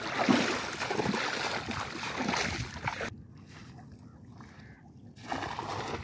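Legs splashing and sloshing through shallow river water for about three seconds, cutting off suddenly. About a second before the end a cast net lands on the water with a splash.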